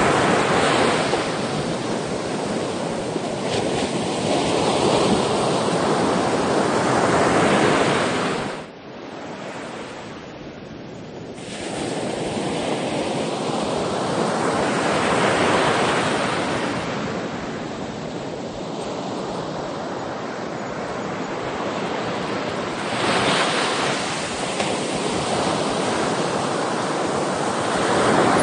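Sea waves surging and washing up the shore in slow swells, one rush after another. Near a third of the way in the surf sound falls away abruptly for about three seconds, then comes straight back.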